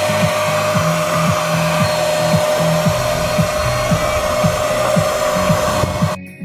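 Handheld electric paint sprayer running steadily with a whine while spraying paint, cutting off suddenly near the end.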